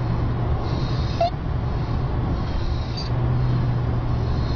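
High-pitched stridor, a harsh squeaky noise heard with each breath in and repeating roughly every two seconds, over a steady low hum. It is the sign of a narrowed upper airway.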